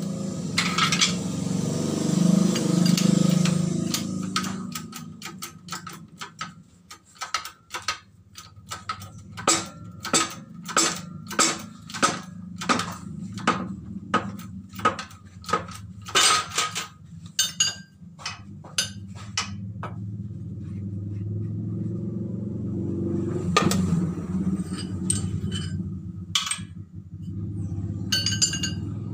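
Hydraulic bottle jack on a shop press being pumped with its handle while a motorcycle crankshaft's connecting rod is pressed out: a long run of sharp metallic clicks, about one to two a second, over a steady low hum. A louder rumbling noise comes in the first few seconds, and a few metal clinks come near the end as parts are handled.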